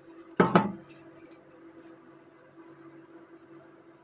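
A loud metallic clunk of steel kitchen utensils about half a second in, followed by a few light clinks, over the steady low hum of an induction cooktop.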